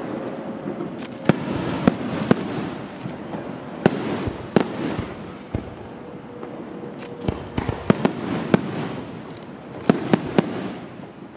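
Aerial fireworks going off: a dozen or so sharp bangs at uneven intervals over a continuous crackle of bursting stars.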